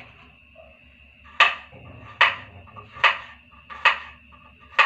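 Knife chopping garlic cloves on a small square cutting board: five sharp, evenly spaced chops, a little under a second apart, starting about a second and a half in.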